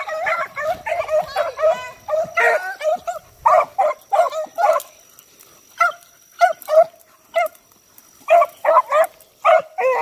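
A pack of beagles barking in short, high yelping calls as they trail a rabbit. The calls come thick and fast at first, thin out to scattered yips a little past halfway, then pick up again near the end.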